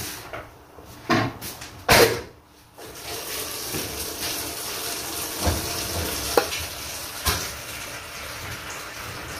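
Dishes and utensils clattering in a kitchen, then a steady rush of running water from a tap with a few sharp knocks of pots or dishes.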